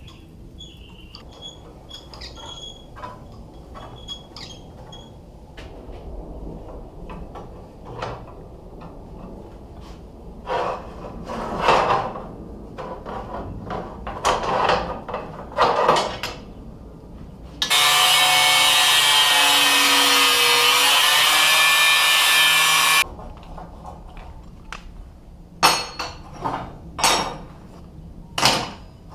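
Flat steel bar being worked through a hand-operated ring roller, with metal scraping and clanking. In the middle, a power tool runs steadily and loudly for about five seconds, starting and stopping abruptly. More sharp metal clanks come near the end.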